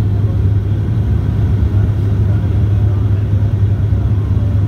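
Inside the passenger cabin of a Bombardier Q400 turboprop on approach with its landing gear down: a steady, loud, low propeller and engine drone with a constant deep hum.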